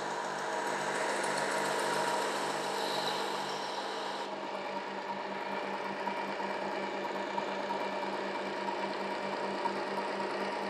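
Work Sharp Ken Onion Edition knife sharpener with the Blade Grinding Attachment running, its medium-grit abrasive belt grinding a knife edge: a steady motor whine with a fast, even pulse and a hiss of grinding that eases about four seconds in.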